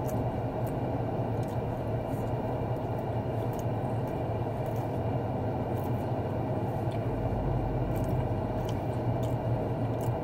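Steady low hum of a running car, heard inside its cabin, with faint chewing sounds over it.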